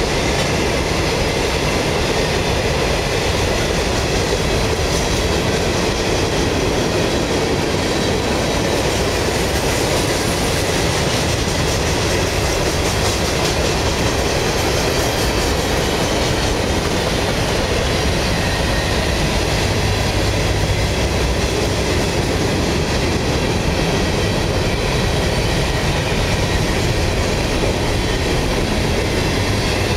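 CSX freight cars (hoppers and boxcars) rolling steadily past at close range, their steel wheels running on the rails with a continuous, even rumble.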